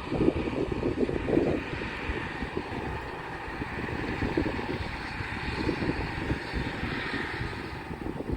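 John Deere 9750 STS combine harvester running, a steady engine and machinery drone with a rough rumble underneath.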